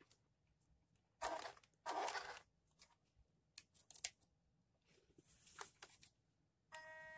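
Soft rustling and scraping handling noises, with a few light clicks, as the winch line's hook is clipped onto an RC truck's bumper. Near the end a small electric RC winch motor (INJORA metal winch) starts up with a steady whine.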